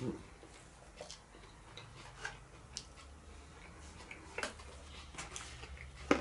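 Metal fork clicking and scraping against a cardboard takeaway box of roast vegetables: irregular sharp taps roughly once a second, the loudest one near the end.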